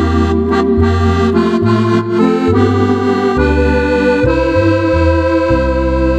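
Roland FR-4X digital accordion playing a tune: held chords in the treble over bass notes that change about every half second to a second.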